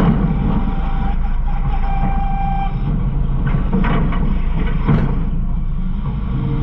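Garbage truck running with a steady low rumble. A brief steady whine sounds about two seconds in, and a few short knocks and clanks come near the middle.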